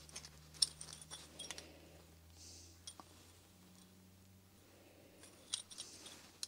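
Faint light clicks and clinks of small steel parts being handled, in a few scattered groups: the rings and ball cage of a lathe drawbar's thrust bearing being picked up and set down while they are measured. A low steady hum lies underneath.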